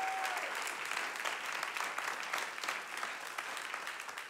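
Congregation clapping, a dense patter of many hands that slowly fades toward the end. A single held tone dies away just after the start.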